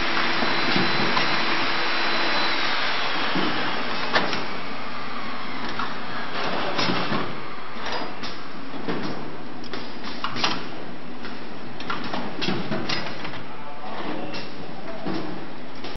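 Automatic avocado peeling machine running, with a steady hiss and a whine that slides down in pitch and dies away about three seconds in. Irregular clicks and knocks from its pneumatic mechanism follow, the sharpest about four and ten seconds in.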